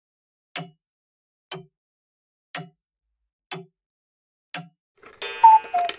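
Clock ticking steadily, about one tick a second, then a short two-note falling tone near the end.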